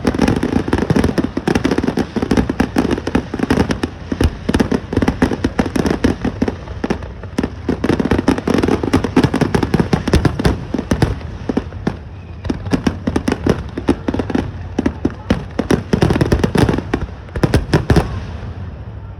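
Fireworks display finale: a rapid barrage of firework shell bursts, many bangs a second, thinning out in the last couple of seconds.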